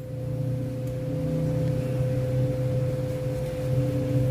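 Steady low mechanical hum with a constant high tone over it, a little louder from about half a second in.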